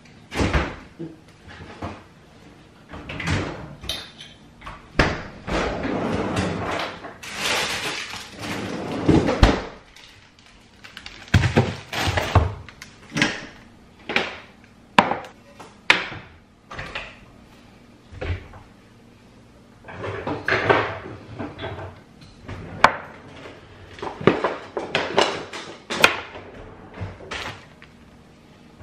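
Kitchen work sounds while breakfast is made: cupboard doors and drawers opening and closing, with many separate knocks and clatters of dishes and utensils and a few longer stretches of hiss.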